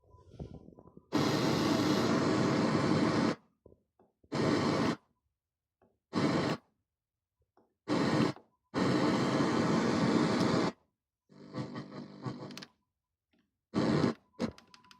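Panasonic CQ-C1300AN car radio tuning across the FM band: bursts of static hiss of half a second to two seconds, cut off sharply between silent muted gaps, with a faint snatch of a station partway through.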